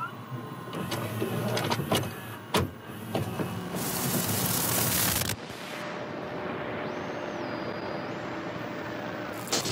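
Videocassette recorder mechanism clicking and whirring as a tape is loaded and starts playing, with a sharp clunk a little over two seconds in. A loud burst of static hiss follows around the four-second mark, then steady tape noise.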